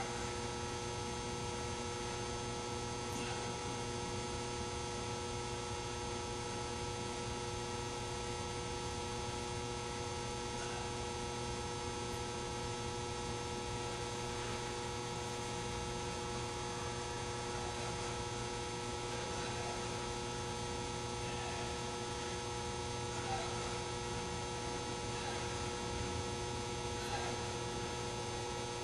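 Steady electrical hum with several constant tones over a low hiss, unchanging throughout; no other sound stands out.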